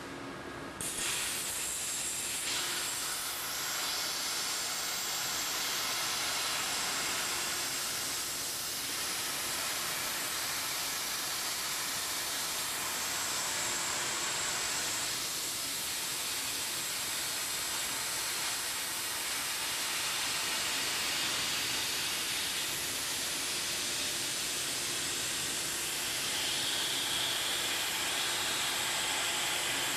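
Torch of a Messer CNC plasma cutting table cutting metal plate: a steady hiss with a thin high whine that starts abruptly about a second in.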